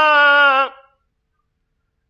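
A man's voice reciting the Quran in melodic tajwid style, holding a long, slightly wavering note that fades out under a second in.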